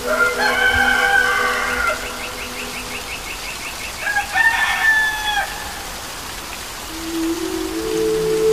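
A rooster crowing twice, the second crow about four seconds in, over the steady hiss of rain falling.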